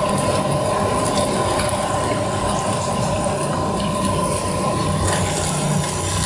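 Hot oil sizzling steadily in a wok as whole fish deep-fry, over a steady hum, with a few light clicks of metal tongs and a strainer.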